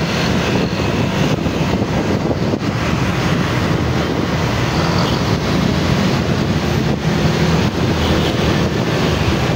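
Steady wind noise on the microphone over motorcycle engines and road traffic running.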